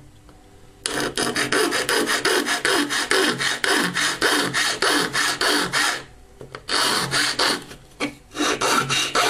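A round metal file rasping back and forth on the edge of a hard plastic adapter case, cutting a notch for the cable. Quick strokes start about a second in and run on, with two short pauses near the end.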